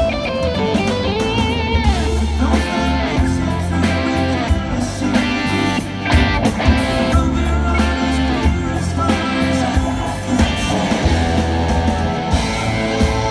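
Rock band playing live at a sound check, with the electric guitar louder than the rest of the band and bending notes, recorded through a cell phone's microphone.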